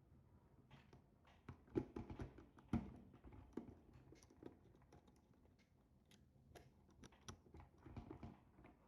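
Faint, scattered clicks and taps of a wire being handled and fitted into a contactor's coil terminal, the loudest about two and three seconds in.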